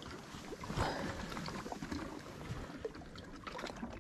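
Small waves lapping against a fishing boat's hull, with scattered light knocks and clicks on the boat.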